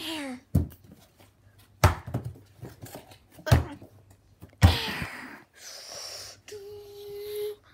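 Knocks and clanks of building work: a short falling tone at the start, then four sharp hits about a second or so apart, each ringing briefly, and a short steady hum near the end.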